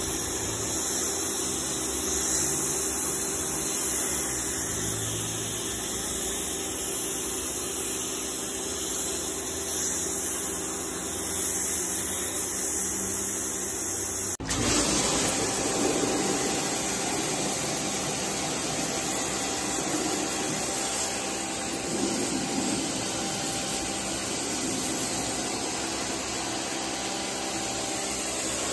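Kärcher electric pressure washer running steadily, its pump motor humming while the lance sprays degreaser onto car carpet. About halfway through, the sound changes abruptly and the spray becomes slightly louder.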